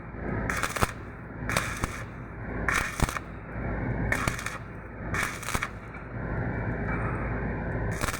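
Welding work: short bursts of crackling noise, roughly one a second, over a steady low hum, with a few sharp clicks.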